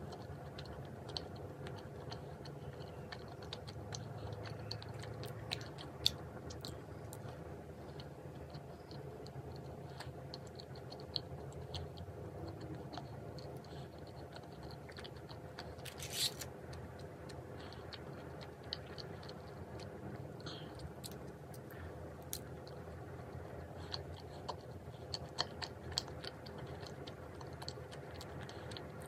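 A person eating: chewing with many scattered small clicks and taps, and one longer scraping clink about halfway through, over a steady faint hum.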